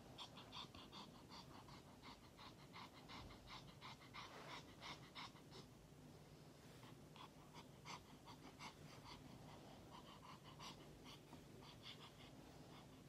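Small dog, a Pomeranian, panting quickly and faintly, about four to five breaths a second, with a short pause around the middle.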